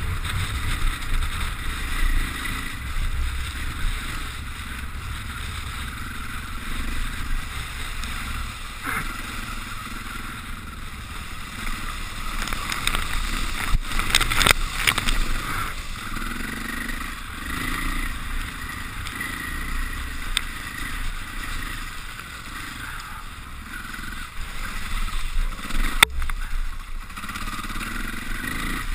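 KTM dirt bike engine running under way, its revs rising and falling, with a burst of splashing spray from mud and water about halfway through.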